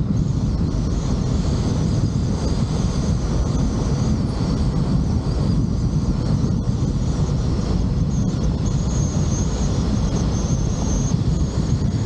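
Steady rumble of wind and road noise from a moving vehicle, with a faint high whine that comes and goes.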